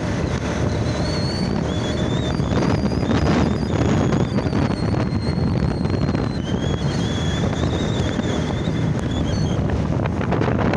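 Wind buffeting the microphone over a motorcycle's engine running at steady road speed, a dense unbroken rush throughout. A thin high whine wavers in and out above it.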